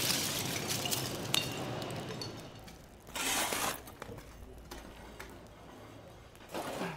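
Crackling and sharp clinks from a tatara clay smelting furnace being broken open at its base to let the molten slag flow out, with a short rush of noise about three seconds in and another near the end.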